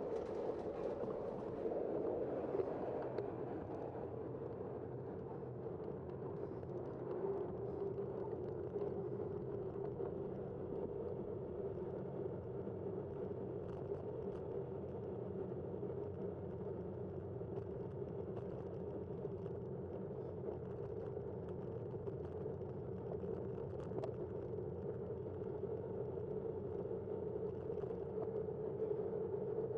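Steady rolling noise of a bicycle ridden along a city street: tyres on pavement, with motor traffic in the background.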